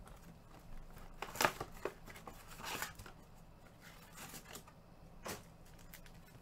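Trading cards being handled and flipped through by hand: irregular soft rustles and sharper card clicks, the sharpest about a second and a half in.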